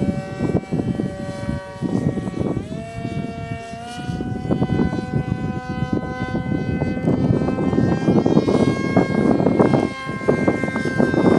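Electric motor and propeller of a homemade foam RC model plane whining steadily, its pitch stepping up twice early on as the throttle is opened, then creeping higher. Gusty rumbling noise sits underneath.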